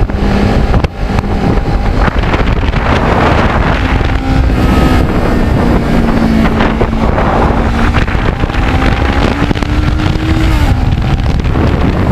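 Kawasaki Ninja 650R's parallel-twin engine running at road speed under heavy wind buffeting on the microphone. Its pitch climbs slowly through the middle and falls away near the end.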